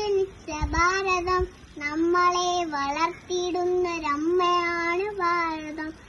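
A child singing a Malayalam patriotic song solo, in phrases of long held notes with short breaks for breath between them.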